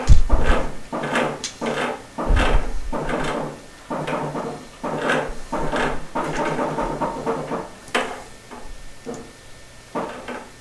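Hand saw strokes cutting the water heater's relief tube to length, a steady back-and-forth scraping about two to three strokes a second, with a couple of heavy bumps from handling the tube and fewer strokes near the end.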